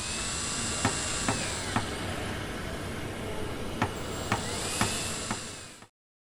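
Loading-screen transition sound effect: a steady hiss with a whistling tone that rises and falls, and sharp clicks about half a second apart in two short groups. It cuts off abruptly near the end.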